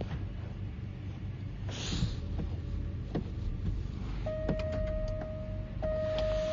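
A few light clicks, then a car's steady electronic warning beep. The beep starts about two-thirds of the way in and breaks off briefly once.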